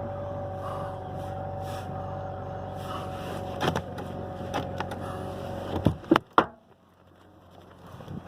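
Chevy Malibu running with a steady hum just after being started in freezing weather. About six seconds in there are a few sharp knocks, and then the sound drops away sharply.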